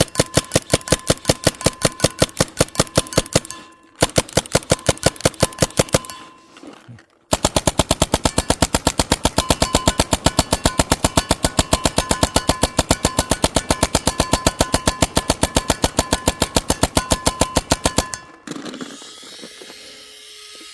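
Compressed-gas less-lethal launcher firing inert paintball-calibre rounds in rapid full-auto strings at a steel target. There is a short burst, a brief stop about four seconds in, a second burst, then a pause and a long unbroken string of about eleven seconds that stops suddenly, leaving a faint hiss.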